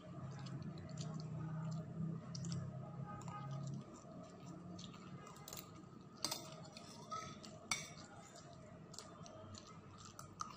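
A fork and spoon clinking and scraping against a glass bowl of fried instant noodles, with two sharper clinks about six and seven and a half seconds in. A low steady hum runs under the first four seconds.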